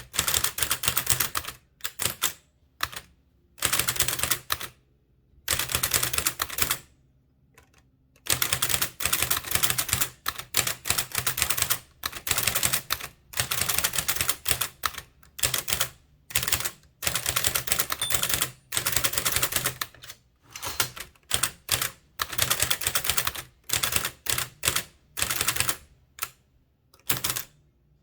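Blickensderfer type-cylinder typewriter being typed on at about four to five characters a second, its keystrokes coming in quick runs of clicks broken by short pauses between words.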